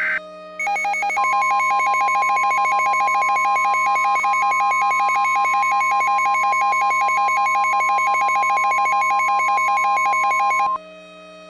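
Weather-radio style emergency alert tone: one long steady beep of about ten seconds, over a fast pulsing electronic beep pattern. Both cut off abruptly, leaving a low steady hum. The sound signals that a new warning is about to be broadcast.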